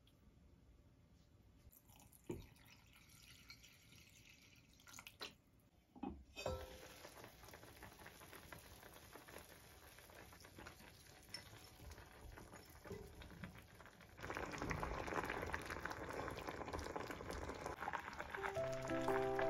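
Chicken drumsticks and nagaimo simmering in an enamelled cast-iron pot: a faint, steady bubbling that turns clearly louder about two-thirds of the way through. Near the start, a few soft knocks of a spatula against a clay rice pot.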